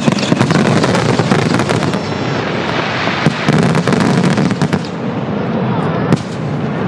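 Fireworks bursting overhead: a dense run of rapid crackling pops for the first few seconds that then thins out to scattered bangs, with one last sharp report about six seconds in.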